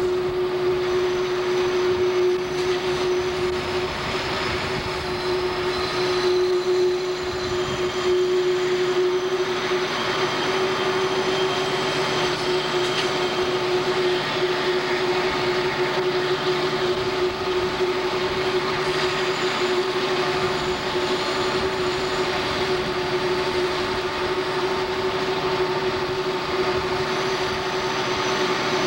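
CSX diesel-electric locomotives running as the train rounds curves: a steady engine drone with one constant tone, and wheels on the rails. Faint high squeals come and go, typical of wheel flanges on the curves.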